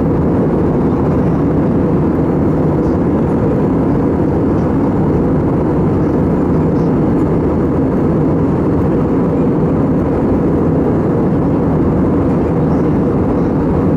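Steady cabin noise of an Airbus A320 in flight, heard from the passenger cabin: an even, unchanging rush of engine and airflow noise, deepest in the low range.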